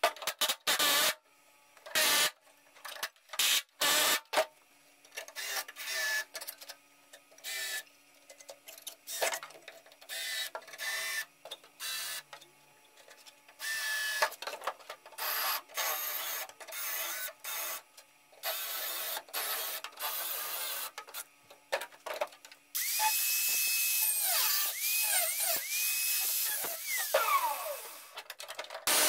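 Pneumatic air hammer with a chisel bit cutting through rusty sheet steel over a car's rear frame rail, in many short bursts. Near the end a small high-speed tool whines steadily, runs up several times and winds down.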